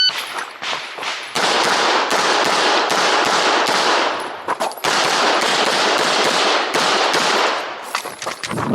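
Glock 17 Gen5 9mm pistol fired in rapid strings through a practical-shooting stage, started by the shot timer's beep at the outset. There are brief pauses about a second in, around the middle and near the end.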